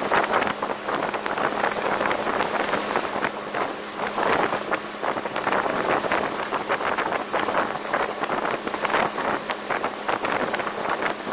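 A 1985 Sea Sprite motorboat running at speed: wind buffets the microphone and the wake churns, over a steady low engine hum.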